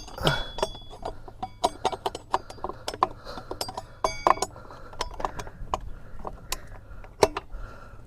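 Irregular metal clinks and taps, a few ringing briefly, from tools and parts being handled at a motorcycle's rear wheel and axle.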